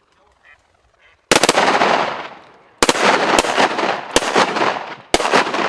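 A volley of about five shotgun shots from several hunters firing at ducks over a pond, the first about a second in and the rest in quick succession, each shot echoing and fading away.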